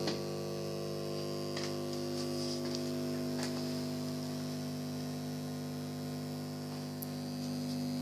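A steady electrical hum made of several held low tones that does not change, with a few faint clicks.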